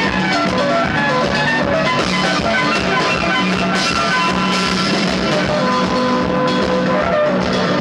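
Live rock band playing loudly, with guitar and drum kit.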